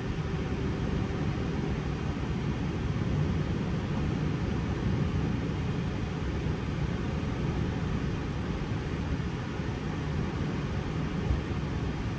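Steady low rumble inside the cockpit of an Airbus A320 taxiing, with one soft bump about eleven seconds in.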